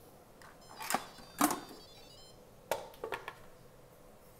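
A few short knocks and a metallic clatter with brief ringing from handling the stainless steel inner pot of an Instant Pot. The loudest comes about a second and a half in, and there are lighter knocks near the end.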